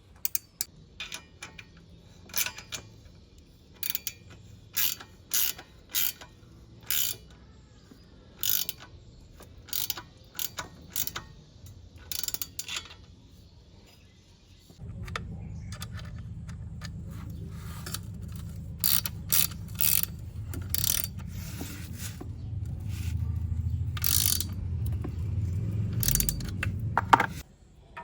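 Socket ratchet wrench clicking in short bursts of strokes as exhaust mounting bolts are tightened. About halfway through, a steady low hum starts under the clicking and cuts off suddenly near the end.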